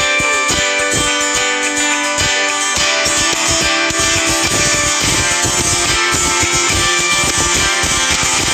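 A Nokia E72 ringtone playing: a loud instrumental tune of quick plucked-sounding notes, shifting to a denser, busier pattern about four to five seconds in.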